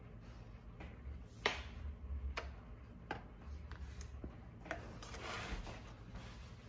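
A ladle knocking against the sides of a plastic mixing bowl and a foil tray while thick bean batter is ladled across: a handful of sharp clicks, the loudest about one and a half seconds in, and a soft wet scraping sound near the end.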